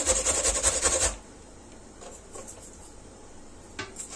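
Food being grated on a box grater: quick, even rasping strokes that stop about a second in. A single light knock comes near the end.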